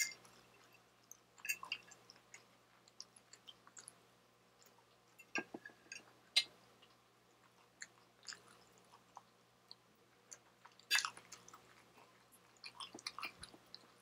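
Close-miked chewing and wet mouth sounds of a person eating trout, rice and broccoli: scattered sharp clicks and smacks, with clinks and scrapes of a metal fork on the plate. The loudest click comes about eleven seconds in.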